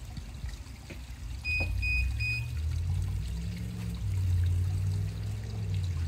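Three short electronic beeps, then a Haswing Protruar G 3.0 electric trolling motor starting up underwater, its propeller churning the pool water with a steady low rumble from about a second and a half in.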